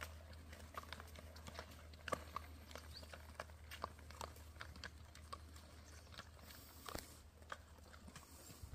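Faint, irregular clip-clop of several horses' hooves walking on asphalt.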